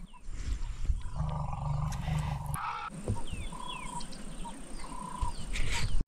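An African elephant's low, pitched rumble, the call known as its purr, about a second in and lasting about a second and a half. Birds chirp after it, and a brief rush of noise comes at the very end.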